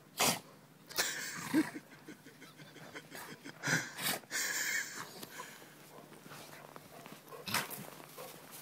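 A Rottweiler and a black Labrador play-wrestling in snow: several short bursts of heavy dog breathing and snorting, mixed with the scuffle of bodies rolling in the snow.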